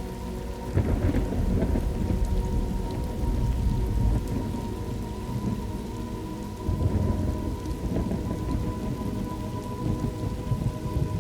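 Thunderstorm: steady rain with rolling thunder, a low rumble swelling about a second in and another near seven seconds.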